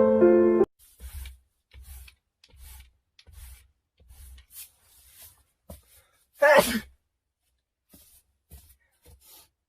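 A person sneezing once, about six and a half seconds in, after a run of faint short sounds about every three-quarters of a second.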